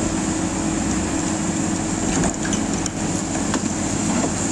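Diesel engines of heavy excavators and an articulated dump truck running steadily, with a few sharp knocks about two to three seconds in.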